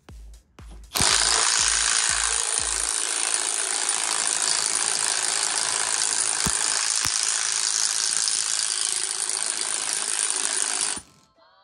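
Cordless impact driver hammering steadily for about ten seconds, then cutting off sharply. It is turning the forcing screw of a bearing puller to pull a bearing off a Dana 44 differential carrier.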